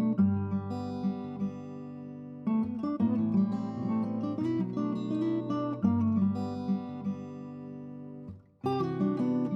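Background music of plucked and strummed acoustic guitar. The music breaks off briefly near the end and then starts again.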